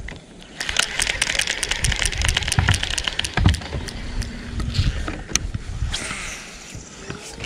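Baitcasting reel being cranked: a fast, dense run of gear clicks for about three seconds, with one dull thump about three and a half seconds in.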